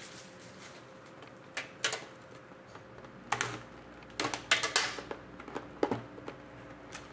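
Scattered sharp clicks and short rustles of a trading-card box and its packaging being handled and opened, in small clusters with quiet between.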